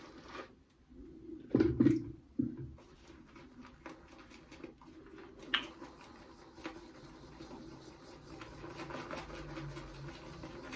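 Synthetic shaving brush working up wet shaving-soap lather: a soft, wet swishing with many small clicks. There are two or three louder knocks about two seconds in.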